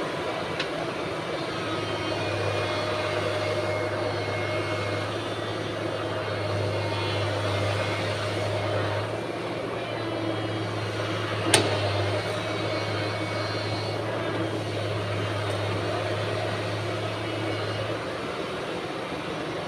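Excavator's diesel engine running steadily under load, with a low hum and hydraulic whine over it, and one sharp knock about halfway through.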